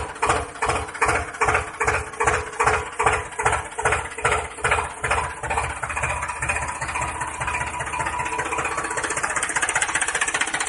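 Tractor diesel engine chugging. It knocks slowly and heavily at first, then settles into a faster, steady run from about halfway.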